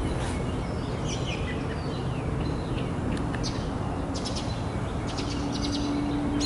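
Birds chirping in short bursts over a steady outdoor background hiss.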